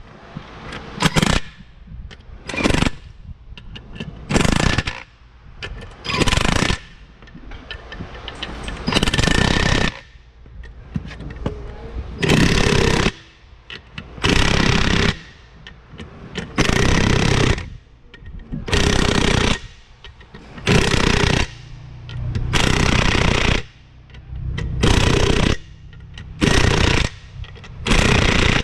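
Cordless power tool running in a long series of short bursts, each about a second long, as it drives the wheel nuts onto a tractor's front hub.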